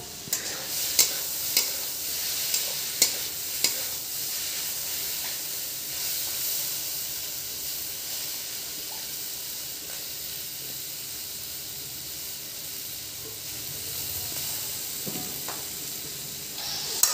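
A stir-fry of onion, capsicum and paneer sizzling in hot oil in an iron kadai, tossed with a metal spatula. Sharp clacks of the spatula against the pan come about six times in the first four seconds, then a steady sizzle.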